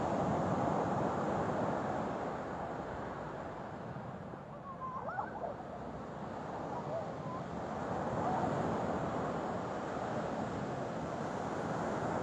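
Sea water washing and surging, swelling and easing off in waves. A few brief high squeaky calls come about five seconds in.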